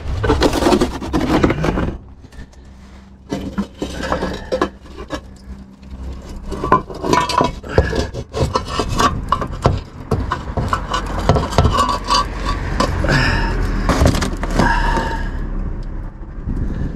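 Irregular metallic clinks, knocks and scrapes as the oil sump of a Vauxhall Corsa's 1.4 A14XER engine is pried and wrenched loose with hand tools while two small hidden bolts still hold it in place.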